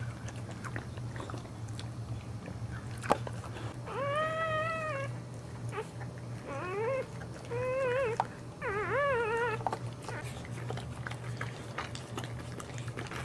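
Newborn boxer puppy crying four times, thin wavering squeals, the first a single arched cry and the last three quicker and shakier, as the mother licks it clean. Soft wet licking and rustling noises run between the cries over a steady low hum.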